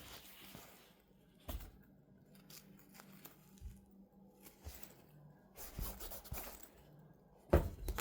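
Rustling and scraping as a pet backpack carrier is handled and turned over, with a knock about a second and a half in and a louder thump near the end.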